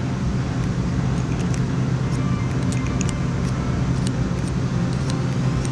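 A steady low machine hum, with faint light metal ticks as a plug gauge is set into the tapped holes of a steel block.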